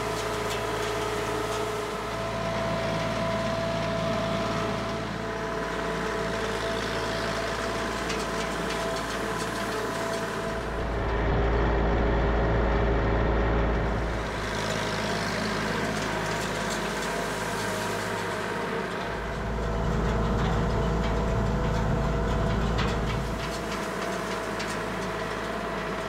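A TYM 2515 24-horsepower compact tractor's diesel engine running steadily while it pulls a hay rake. It swells louder twice, for a few seconds each time.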